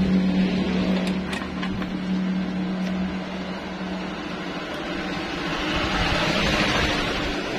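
The TV's speaker gives a steady low hum that fades after about four seconds, then a rough, raspy hiss that swells near the end instead of clean audio. This is the faulty sound output of a set whose audio goes raspy and drops out.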